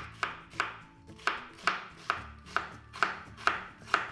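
A knife slicing an onion into half rings on a wooden cutting board: an even run of about eleven chopping strokes, two to three a second, each one the blade going through the onion and knocking the board.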